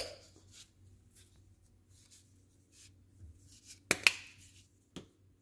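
Kitchen handling sounds as seasoning is added to a cornmeal breading in a glass dish: a sharp click at the start, two sharp knocks about four seconds in and another a second later, from a spice bottle and its lid, with faint short shakes and rustles between.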